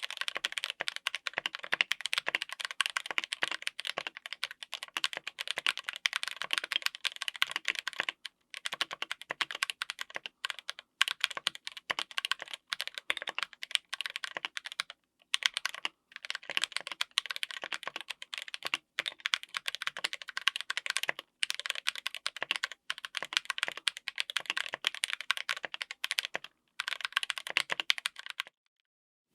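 Fast typing on a full mechanical keyboard with stock Akko CS Jelly Black linear switches on an FR4 plate: a dense run of keystroke clacks, with a few short pauses, stopping about a second before the end.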